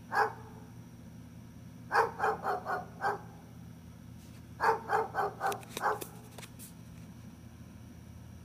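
A dog barking: a single bark, then two quick runs of about five barks each, a couple of seconds apart.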